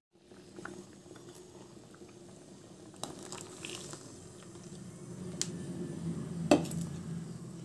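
A pot of chana dal in jaggery syrup bubbling on the stove as coconut milk goes in, with a low steady hum of the simmer. A few light clicks and clinks of a utensil on the pot, the sharpest about six and a half seconds in.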